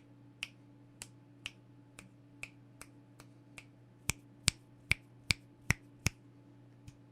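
Finger snaps, about two or three a second, picked up by a Rode Procaster dynamic microphone with a cardioid pattern. The snaps are soft for the first few seconds, then six much louder snaps come from about four seconds in, and soft ones return near the end. The softer snaps are the ones made off to the side, which the microphone rejects.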